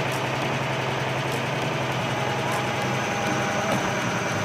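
Truck engine idling steadily with an even hum.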